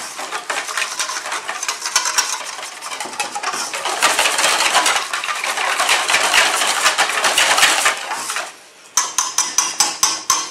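Wire whisk beating thin Yorkshire pudding batter in a bowl: fast, continuous clicking strokes against the bowl as the milk is whisked into the egg-and-flour paste. Near the end the whisking stops, followed by about half a dozen quick sharp taps against the bowl.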